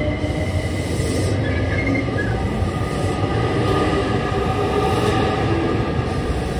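JR Kyushu 885 series electric express train pulling out of the station and gathering speed past the platform: a loud, steady rumble of wheels on rail with a thin whine running above it.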